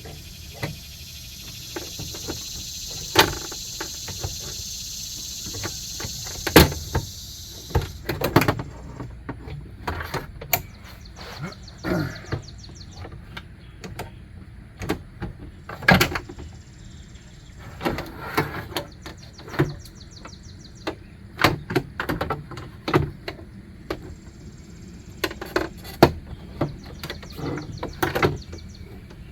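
Scattered metal clanks, clicks and knocks as a replacement window regulator is worked into a 2003 GMC Yukon XL Denali's rear door cavity. A steady high hiss under them stops about eight seconds in.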